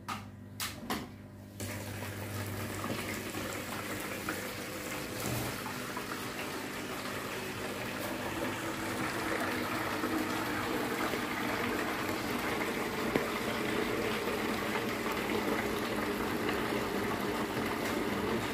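Water pumped by two aquarium power heads, an Amara SP-1200A and a YP-1200, gushing through hoses into clear plastic gallon jugs: a steady churning and bubbling that grows slowly louder as the jugs fill. A few sharp clicks come in the first second and a half, before the water starts.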